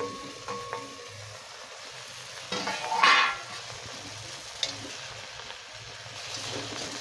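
Fish wrapped in banana leaf sizzling in oil in a steel karai, a steady hiss with a louder surge about three seconds in. A light metal clink from the steel cover comes near the start.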